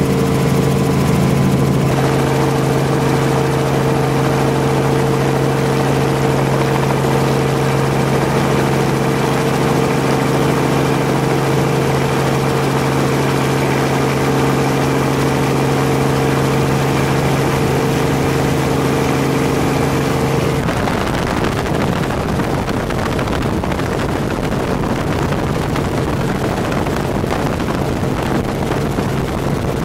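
Steady engine drone with a low hum, turning rougher and noisier about twenty seconds in.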